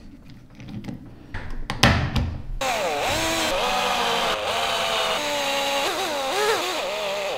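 A few clicks and a knock, then a cordless drill-driver runs for about five seconds, driving screws into the gearbox housing. Its motor whine dips and rises with the trigger and cuts off suddenly.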